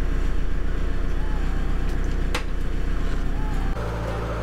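Narrowboat diesel engine running steadily with a fast, even pulse, heard through the wooden cabin. Its tone changes abruptly near the end, and a single sharp click comes a little past halfway.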